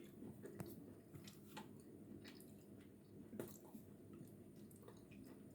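Faint, irregular crunching and wet clicking of a mouthful of eating chalk being chewed slowly.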